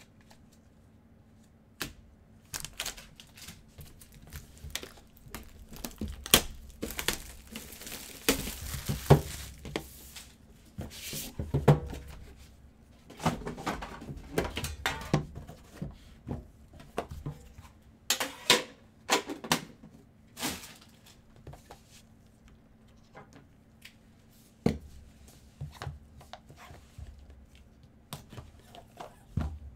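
Gloved hands unwrapping and opening a box of trading cards and then a foil card pack: crinkling and tearing of wrapper, with knocks and clicks of the box and cards. The rustling is busiest in the first two-thirds, with sparser clicks later.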